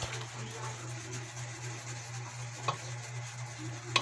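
A wooden spoon stirring thick, creamy spaghetti sauce in a pan over a steady sizzle from the cooking sauce. Two sharp knocks of the spoon against the pan come late on, the second the loudest.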